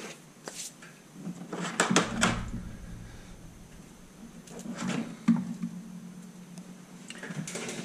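Several separate clicks and knocks of tools being handled on a workbench: needle-nose pliers set down, then a soldering iron picked up. The loudest come about two seconds in and again around five seconds in.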